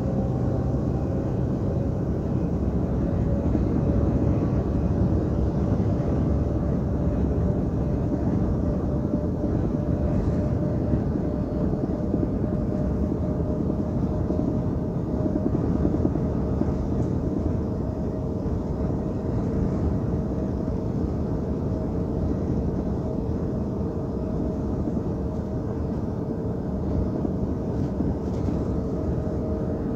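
Semi-truck cab interior at highway speed: steady engine drone and road noise, with a faint whine that drifts slightly in pitch.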